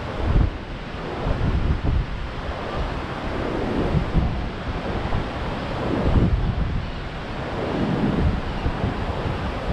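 Rough Gulf of Mexico surf breaking and washing up the beach, stirred up by a tropical storm offshore, with strong gusty wind buffeting the microphone.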